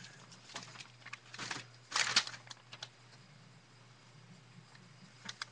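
A few scattered taps, clicks and rustles of hands handling a target while setting it up, the loudest about two seconds in, over a faint steady electrical hum.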